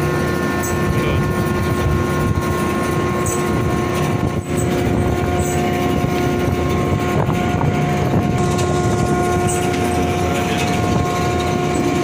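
Deck machinery of a floating crane running: a loud, steady drone with a steady whine held throughout.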